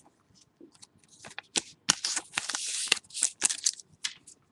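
Trading cards being slid and flipped against each other: light clicks and papery swishes, the longest and loudest from about two to three seconds in.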